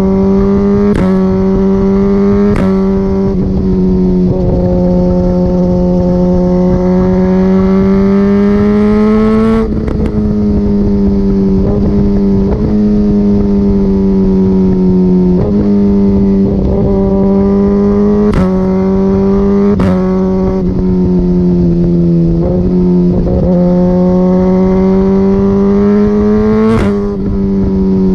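Suzuki GSX-R1000R's inline-four engine running hard through an Akrapovic Evolution full exhaust system, its pitch rising and falling over several seconds. Sharp pops crack out about six times as the note shifts, typical of quick-shifter gear changes.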